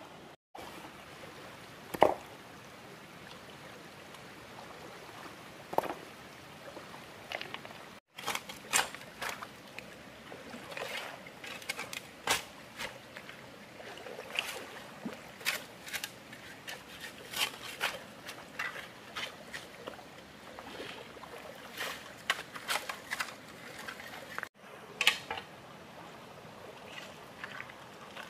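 Water trickling, with many short, sharp sounds coming thick and fast through the middle of the stretch.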